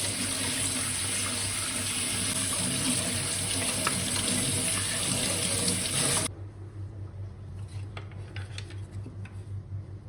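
Water tap running full into a sink, shut off suddenly about six seconds in, followed by a few faint clicks.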